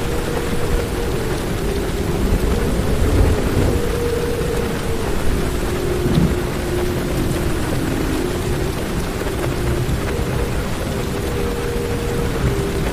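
Heavy rain drumming on a car's roof and windows, heard from inside the car, with thunder rumbling low about two to four seconds in. A faint low hum runs beneath the rain and drops in pitch about five seconds in.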